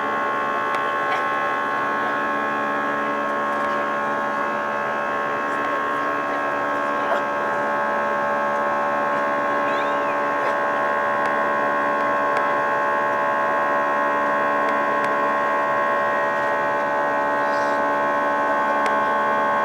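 Airbus A320 cabin noise in the climb after take-off: a steady engine and airflow drone with several fixed whining tones, edging slightly louder over time.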